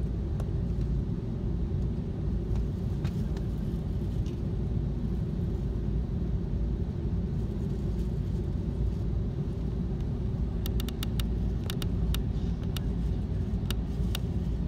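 Steady low rumble inside the cabin of an Airbus A330-300 taxiing, heard from a seat over the wing. A run of sharp clicks comes near the end.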